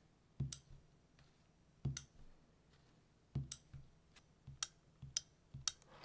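About ten faint, irregularly spaced sharp clicks with soft knocks, the sound of small plastic parts being handled: a smart light socket and a light bulb.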